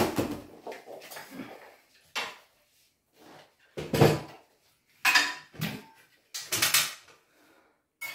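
Separate knocks and metallic clinks of handled tools and an aluminium stepladder, about six clatters a second or so apart, the first a sharp knock and the loudest.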